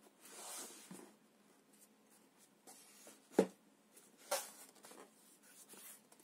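Cardboard box being handled by hand, the card scraping and rustling as it is slid and turned over, with a sharp knock about three and a half seconds in and a softer one a second later.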